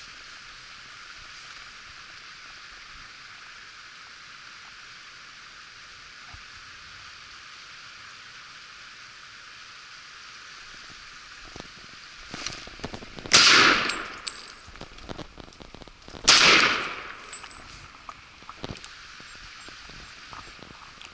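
Two loud gunshots from a hunting gun, about three seconds apart past the middle, each cracking suddenly and fading out over about a second, over a steady background hiss.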